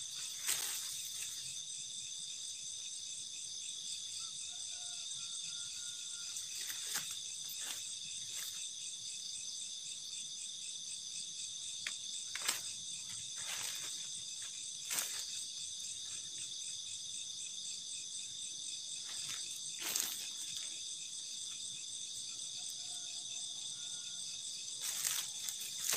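Steady chorus of night insects trilling at several high pitches, with occasional short clicks and rustles.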